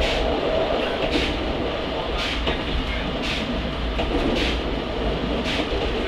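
NOHAB 100-series diesel railcar running: a steady low rumble of engine and wheels on the rails, with a regular short click about once a second.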